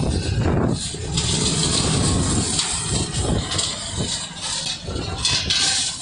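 Diesel engine of a self-loading mobile concrete mixer running while its hydraulic loading hopper is raised. A low rumble sits under a steady rushing hiss.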